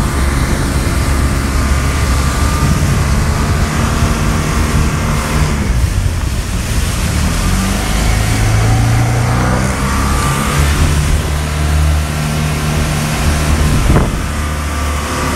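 Jet ski engine running under way, its pitch dropping about a third of the way in and then climbing again, over a rush of wind and water. A short thump near the end.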